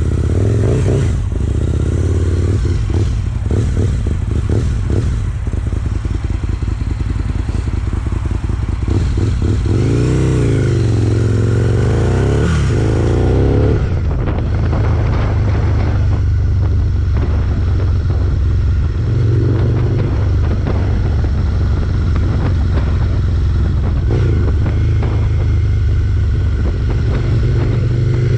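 Aprilia SL1000 Falco's V-twin running through a GPR Furore exhaust with the dB killer fitted. It runs steadily, with the pitch rising and falling a few times between about ten and thirteen seconds in.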